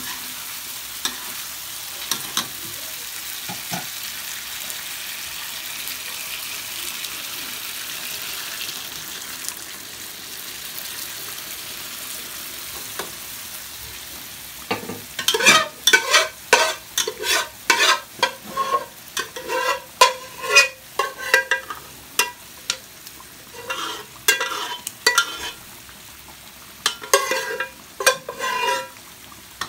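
Duck stew sauce sizzling and bubbling in a wok with a steady hiss. About halfway through, a metal spatula starts scraping and clacking against the wok in quick strokes as the sauce is stirred.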